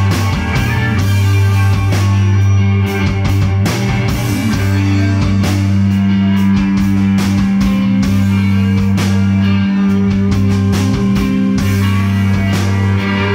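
Rock band playing an instrumental passage on electric guitars and drum kit, with long held low notes under the drum hits and no singing.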